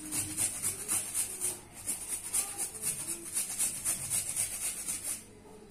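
Fresh ginger being grated on a small handheld metal grater: quick, even rasping strokes, about three a second, that stop shortly before the end.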